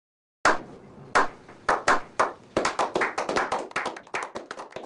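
A small group clapping. It starts about half a second in with a few slow, separate claps, which quicken into steady applause.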